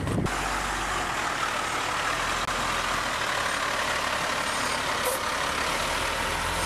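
Military tactical truck's engine running as the truck rolls slowly forward. A steady drone with a low hum and a faint high whine.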